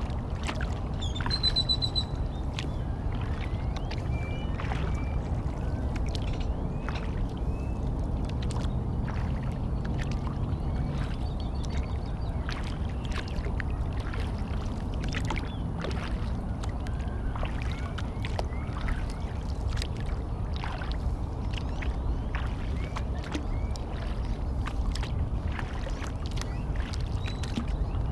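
Water sounds from a kayak out on a lake: frequent small splashes and drips over a steady low rumble, with a few short bird chirps about a second in and again near the middle.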